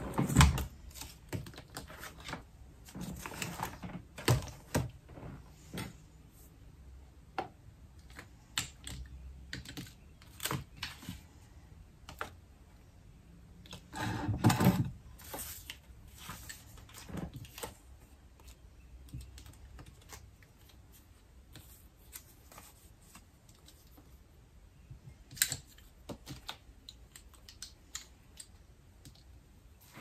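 Small objects such as pens, pencils and cards being picked up and set down on a wooden side table: irregular light clicks and taps, a few louder knocks, and a clatter of about a second around the middle.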